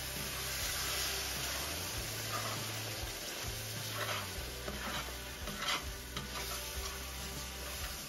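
Buttermilk white gravy sizzling in a cast-iron skillet as a wooden spatula stirs and scrapes through it, with a few sharper scrapes against the pan.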